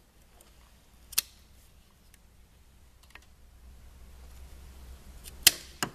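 Pliers clicking on the metal clamp of the coolant hose at the back of a snowmobile cylinder head while the clamp is worked off. There are sharp single clicks about a second in and around three seconds, then two close together near the end, the first of that pair the loudest.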